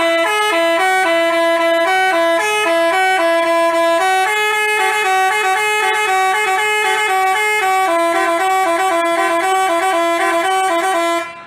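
Telolet 'basuri' musical bus horn playing a quick tune of stepping notes in two parts, loud and unbroken, stopping near the end.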